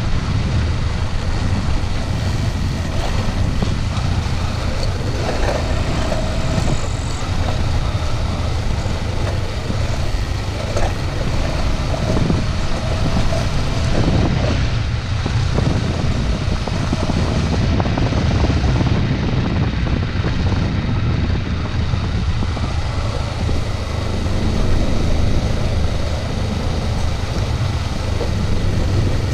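Motorcycle engine running steadily at low road speed, heard from the rider's seat, with a constant low rumble and no pauses.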